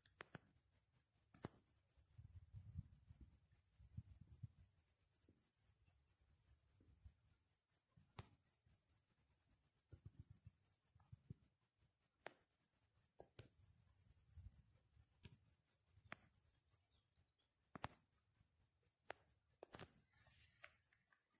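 Faint insect chirping: a steady, rapidly pulsing high-pitched trill, with a few sharp clicks here and there.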